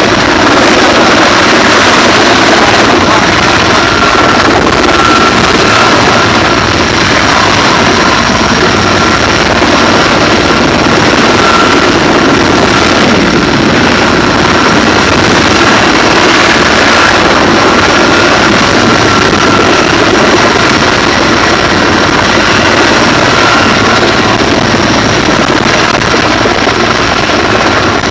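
Heavy-lift sky-crane cargo helicopter hovering close overhead with a load slung on a long line. Its turbines and rotor make a loud, steady din with a high whine running through it, and the rotor downwash buffets the microphone.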